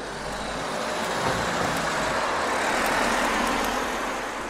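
A road vehicle driving past on the street, its noise swelling to a peak about three seconds in and then fading.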